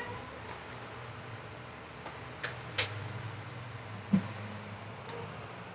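Faint clicks and handling noises from plastic parts, a few of them scattered over several seconds, as a rubber belt is fitted onto the pulleys of a DVD loader's open/close tray mechanism. A low steady hum runs underneath.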